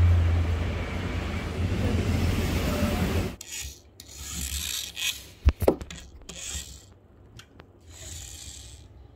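A steady low hum with a hiss for about three seconds, then it cuts off. After that come light rubbing and scraping with a couple of sharp clicks in the middle, as plastic toy race cars are handled and moved about on a tabletop.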